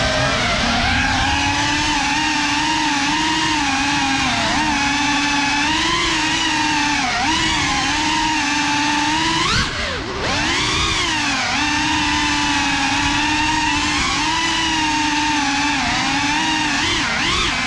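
Small FPV quadcopter's motors and propellers whining, the pitch wavering up and down with the throttle. About ten seconds in the whine cuts briefly, then sweeps sharply up and down before settling again.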